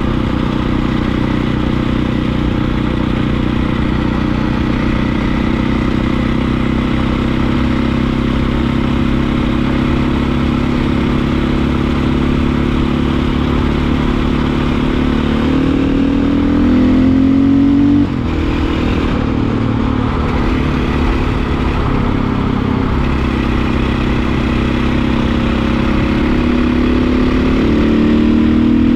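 Dirt bike engine running at a low, steady pace along a road. Past the middle its pitch rises for a few seconds, then drops suddenly, and it climbs again near the end.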